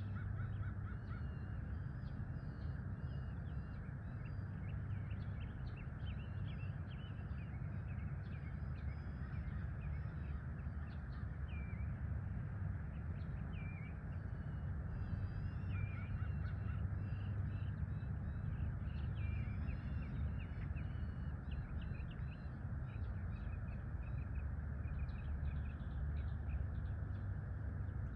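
Outdoor dawn ambience: many birds chirping and calling throughout, over a steady low rumble.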